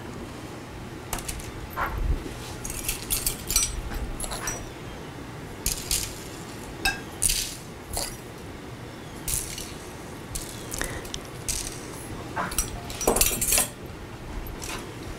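Scattered light clinks and taps of a utensil against a bowl and a foil-lined baking tray, with brief soft rustles between, as cookies are dipped in icing and set down.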